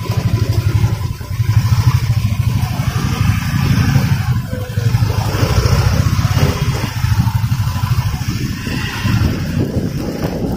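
Motorcycle engine running while riding slowly through traffic, a low, even pulsing exhaust note with small swells as the throttle opens and closes.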